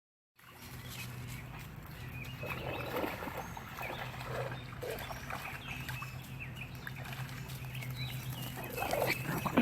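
Dog sounds close to the microphone, irregular and noisy, over a steady low hum, with short bird chirps high above; the loudest moment comes near the end.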